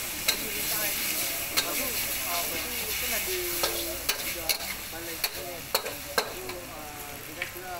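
Kuey teow being stir-fried in a wok over a gas burner: steady sizzling hiss, with the metal wok spatula clanking against the wok about seven times.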